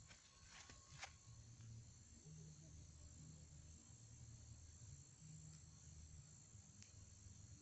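Near silence: faint outdoor ambience with a steady high-pitched drone of insects, and a couple of faint clicks about a second in.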